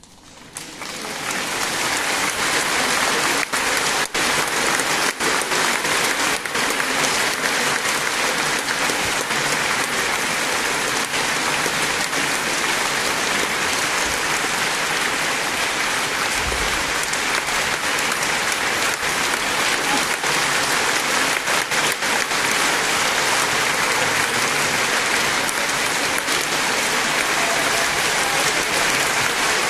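Concert audience applauding. The clapping swells up within the first couple of seconds and then holds steady and dense.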